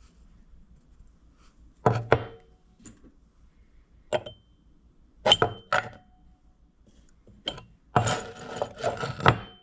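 Freshly cut metal clamp pieces being handled and set down on a hard bench: separate sharp clinks and knocks, then a busier rattle of parts near the end.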